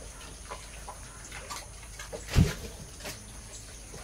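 Calf suckling at its mother's udder: scattered short wet sucking and smacking sounds, with one louder thump about two and a half seconds in.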